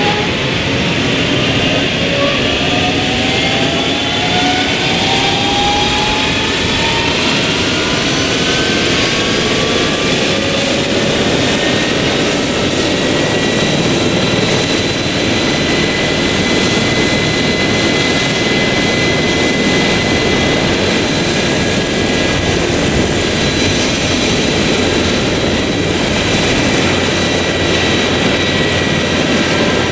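Airbus H135 helicopter's twin turbine engines running on the ground, their whine rising in pitch over about the first ten seconds and then holding steady over a constant rotor and exhaust rush.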